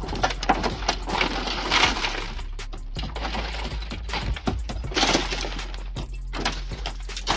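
Shattered tempered car side-window glass being raked and pushed out of the door frame, the small cubes crunching, crackling and tinkling as they break loose and fall. The crackling comes in two heavier rushes, about two seconds in and about five seconds in.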